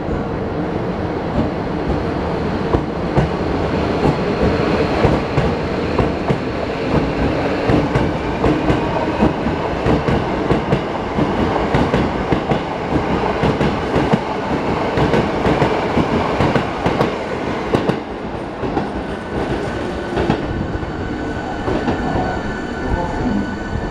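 Hankyu 1000 series electric train running, wheels clacking irregularly over the rail joints, with a faint whine from its very quiet permanent-magnet-motor VVVF drive. The running noise drops a little about eighteen seconds in.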